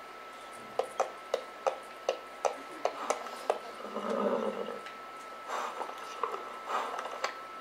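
Hoofbeats clip-clopping in a steady walk, about three to four a second, from an advert's soundtrack played over a hall's sound system; they pause briefly around four seconds in for a short low sound, then carry on more softly.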